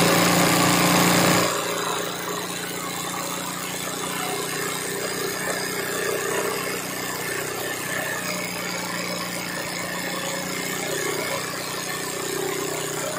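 Sewing machine running steadily, stitching free-hand embroidery on hooped fabric. About a second and a half in it drops to a quieter steady run.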